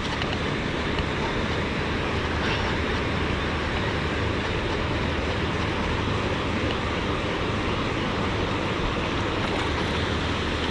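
Steady rushing noise that holds evenly throughout, with no clear breaks or strokes.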